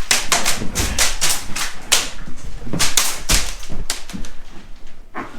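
Airsoft gun firing a rapid, irregular string of sharp shots, about four or five a second, with a short pause near the end.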